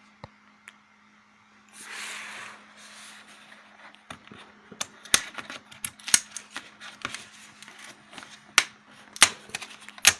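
Cardboard and plastic packaging being handled and opened: a brief rustle about two seconds in, then a run of irregular sharp clicks and snaps from about four seconds on.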